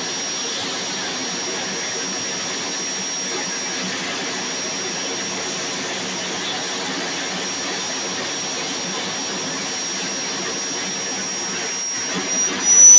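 Turbine aircraft engine running: a steady high whine over a rushing noise. Near the end the whine starts to rise in pitch and the sound briefly grows louder, as the engine spools up.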